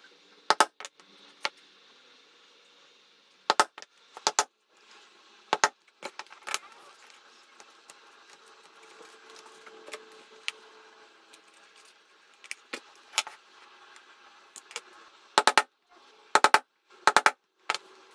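Poly mallet striking a metal leather punch, sharp blows in quick groups of two or three with pauses between, most of them coming near the end.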